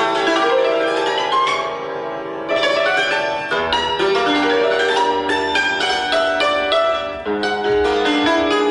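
Concert cimbalom played solo with two mallets: fast runs of struck strings whose notes ring on. The playing eases into a softer, held passage around two seconds in, then the rapid runs resume.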